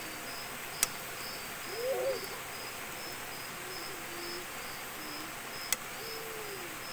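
Crickets chirping steadily in a fast high-pitched pulse, about two to three chirps a second, with two sharp clicks, one about a second in and one near the end, as the ladle knocks against the wok while stirring eggplant.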